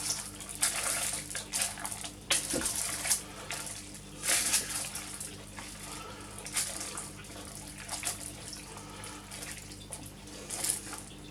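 Spoon stirring a liquid chicken stew in a slow-cooker pot: irregular bursts of sloshing and scraping, over a steady low hum.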